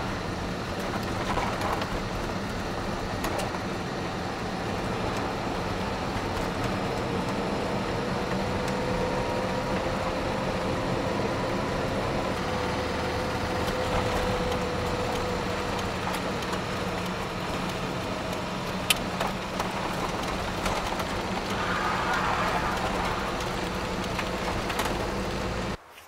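Steady car engine and road noise heard from inside the cabin while driving, with a faint whine through the middle. The sound cuts off near the end.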